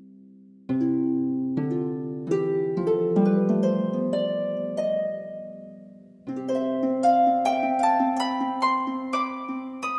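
Background music of plucked string notes, each ringing and dying away, coming in just under a second in; the notes fade about six seconds in, and a fresh phrase of stepwise rising notes follows.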